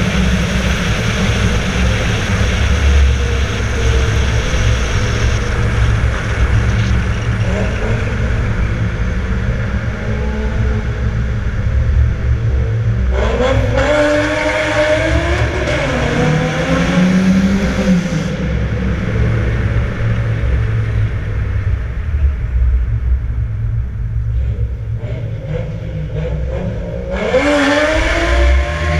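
Turbocharged 1JZ-GTE VVT-i straight-six of a mk3 Toyota Supra accelerating hard in a tunnel. Its note rises and falls in a pull about halfway through and another near the end, each with a rushing hiss, over a steady low rumble of engine and road noise.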